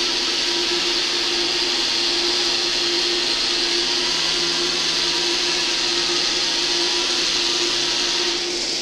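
Small electric motors and gear train of a homemade wooden robot running steadily with a constant whirring hum as it drives along; the sound eases a little near the end.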